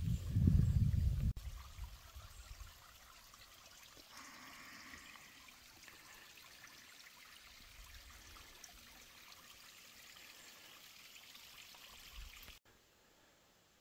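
Faint, steady trickle and wash of a small stream or pond outflow. It is preceded by about a second of loud low buffeting on the microphone and drops away abruptly near the end.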